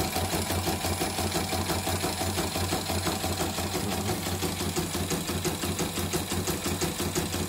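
CNY portable embroidery machine stitching a design, its needle running in a fast, even clatter over a steady motor hum. This is a test run after repairing a machine that had been completely dead.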